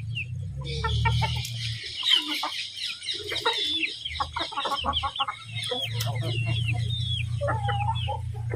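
A flock of Aseel chickens clucking and calling as they crowd round for food, a busy run of many short, high calls in quick succession.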